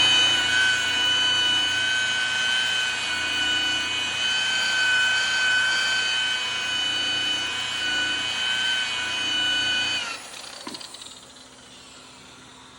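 Makita rotary buffer with a wool pad running at steady high speed, buffing a plastic headlight lens with heavy cutting compound; its high-pitched motor whine holds steady, then winds down and stops about ten seconds in.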